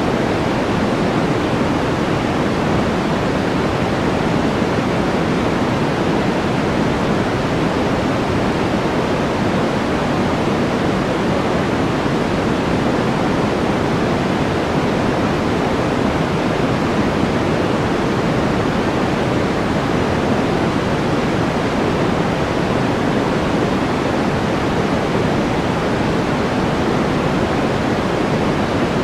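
Steady white-noise background track: an even, unchanging rushing hiss, weighted toward the deeper end, with no voices or other events.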